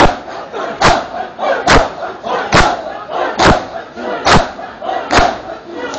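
A large crowd of shirtless Shia mourners doing matam, striking their chests with open hands in unison, with a loud slap a little more often than once a second. Between the strikes the crowd is shouting.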